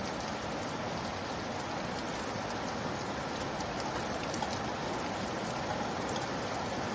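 Steady rain falling, an even hiss with scattered light drops ticking.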